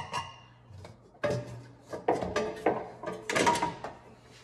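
Sheet-metal air cleaner lid on a Ford 6.9L diesel being unscrewed and lifted off its housing: a series of metallic clinks, scrapes and rattles, the last and loudest cluster near the end as the lid comes free.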